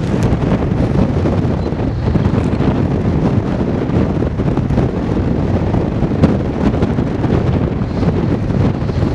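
Strong wind buffeting the microphone, a loud, steady rumble.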